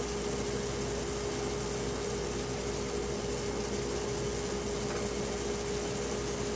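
A machine running steadily: an even noise with one constant hum tone.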